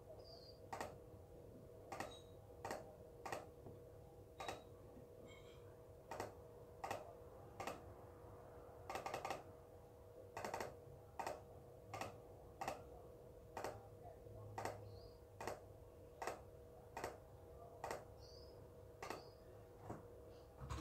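Computer mouse clicking quietly, single sharp clicks at an uneven pace of roughly one to two a second, over a steady faint hum.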